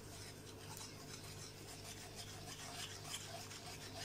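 A whisk stirring cocoa powder into milk in a metal pot: faint, rhythmic swishing and rubbing, about two or three strokes a second.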